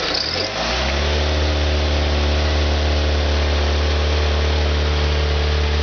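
A vehicle engine revs up over about a second, then holds a steady drone at raised speed.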